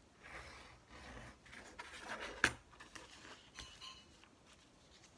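Craft knife drawn along a metal ruler through white card on a cutting mat: a faint scratchy rasp, with a sharp tap about two and a half seconds in, then a few light taps of paper and tools being handled.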